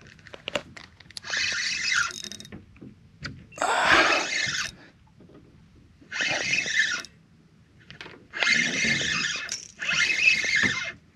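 Spinning reel's drag giving line in about five bursts of a second or so each as a hooked fish pulls against the bent rod.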